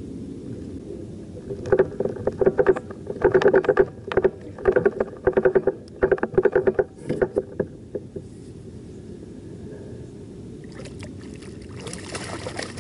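A fishing reel's bait clicker ratcheting in short bursts of rapid clicks for several seconds as a fish takes line. Near the end, a fish splashes at the surface beside the kayak.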